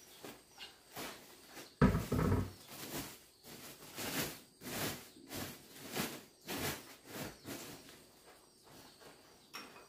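A woven plastic sack rustling and crinkling as it is lifted and handled, in short bursts about twice a second, with a heavy thump about two seconds in as the full sack comes down.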